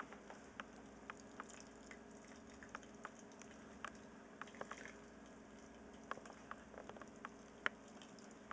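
Wort poured gently from a plastic pitcher over a spoon onto the grain bed of a cooler mash tun: faint trickling and pattering with scattered small ticks, over a low steady hum. This is recirculation of the runnings, poured slowly so the stream does not drill a hole through the floating grain bed.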